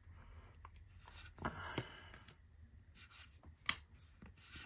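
Faint rustles and a few light clicks of paper trading cards being handled and set down.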